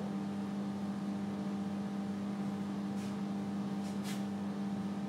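Steady low hum in the room, with a few faint strokes of a marker pen writing on a whiteboard about three and four seconds in.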